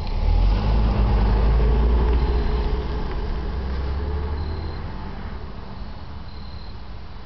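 Nissan 300ZX (Z32) V6 running, its low rumble swelling just after the start and then fading over several seconds, with a faint whine that slowly falls in pitch. This is the weird noise under suspicion, which the owner ties to the transmission.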